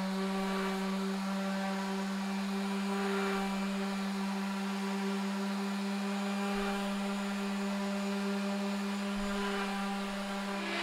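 Random orbital sander running steadily on a spalted maple board, sanding down epoxy-filled imperfections in the tabletop: an even motor hum.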